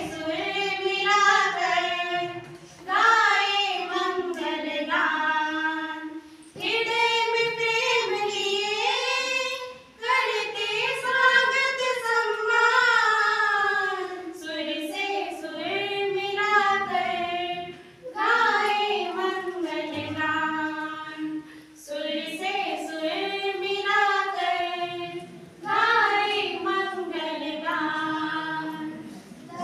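A small group of young women singing a song together without instruments, in phrases of a few seconds with short breaks for breath between them.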